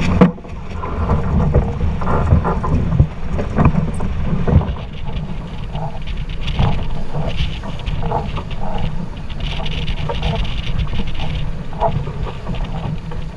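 Heavy wind buffeting the microphone aboard a sailboat under sail, a loud steady rumble. Irregular sharp knocks stand out in the first few seconds, the loudest about three seconds in.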